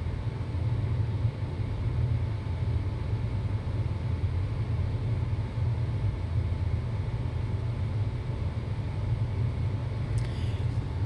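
Steady low hum of background machinery or room noise. A few faint light ticks come near the end.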